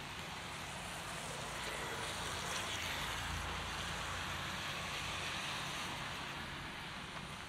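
Heavy rain falling steadily, with a vehicle passing on the wet road: its tyre hiss swells up about two seconds in and fades away before the end.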